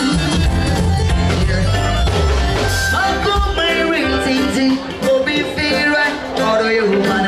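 Music with a singing voice over a strong bass line. The bass falls back about two and a half seconds in, and the singing comes forward.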